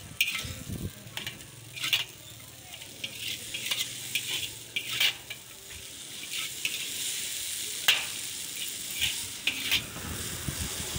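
Chowmein noodles sizzling in a large shallow steel wok while a long metal spatula scrapes and clinks against the pan as they are stir-fried and tossed. There is a steady hiss with sharp scrapes and clinks about once a second.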